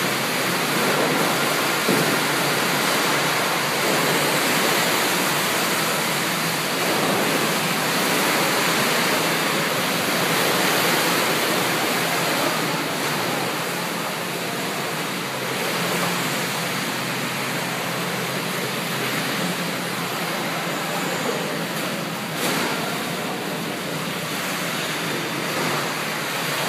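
Water in a cruise ship's pool sloshing and surging as the ship rolls in rough seas, spilling over the pool edges in a steady, loud rush.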